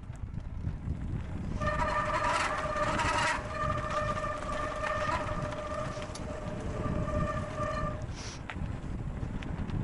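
Mountain bike disc brakes squealing steadily for about six seconds, starting a second and a half in, over a low rumble of tyres on gravel and wind on the microphone.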